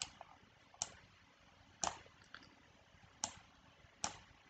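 Computer mouse button clicking: faint single sharp clicks about once a second, some six in all, with the loudest near the middle.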